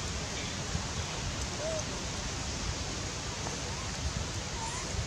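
Forest ambience: a steady even hiss with a low rumble, and a few faint short calls that rise and fall in pitch here and there.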